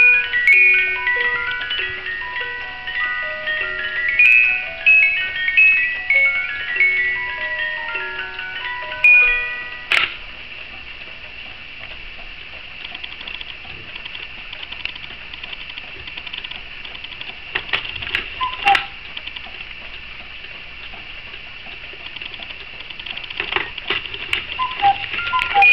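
Cuckoo clock's music box playing a tinkling tune, which stops about ten seconds in with a sharp click. Then the clock ticks steadily, with a few clicks as the minute hand is turned by hand near the end, and the music box starts up again at the very end.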